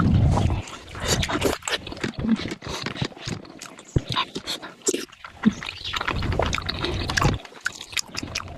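Close-miked eating sounds: wet chewing, lip smacks and slurps of momo dumplings in soupy jhol gravy, coming as a run of short irregular clicks and squelches.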